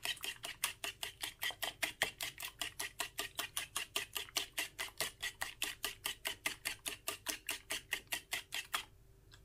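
Egg whites being beaten in a bowl, the utensil clicking against the bowl in a fast, even rhythm of about six strokes a second. The beating stops briefly near the end.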